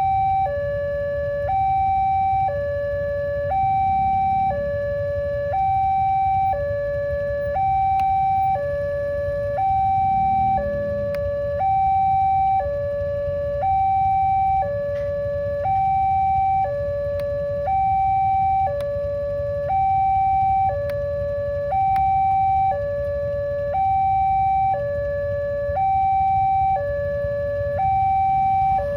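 Railway level-crossing warning siren sounding a steady two-tone hi-lo alarm, a higher and a lower tone alternating, each held about a second, over a low background rumble.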